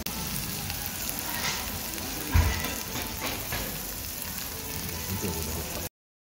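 Hamburger steak sizzling on a hot iron plate, a steady hiss, with one thump a little over two seconds in. The sound cuts off suddenly near the end.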